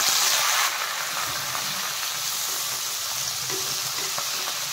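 Finely chopped onion sizzling in hot oil in a kadai, frying with whole spices. The sizzle eases a little under a second in and then holds steady.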